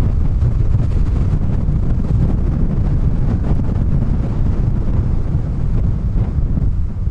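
Strong storm wind buffeting the microphone in a steady, heavy low rumble, with the noise of wind-driven surf from large lake waves beneath it.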